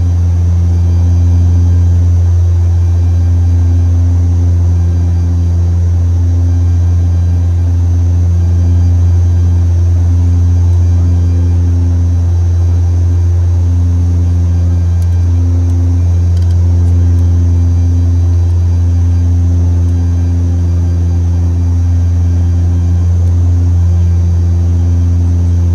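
Antonov-26's two Ivchenko AI-24 turboprop engines and propellers heard from inside the aircraft: a loud, steady, deep drone with a slow, uneven wavering in its higher tones and a faint high whine above.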